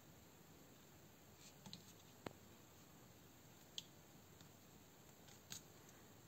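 Near silence broken by a handful of faint, sharp clicks and taps: needle-nose pliers and the airsoft pistol's plastic body knocking together as they are handled.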